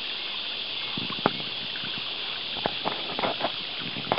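Water splashing and dripping around a kayak moving along the river: a steady hiss with a handful of small sharp splashes.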